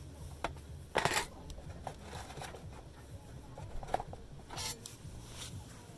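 Wood fire crackling: irregular sharp pops and snaps, with two louder crackling bursts, about a second in and near the end.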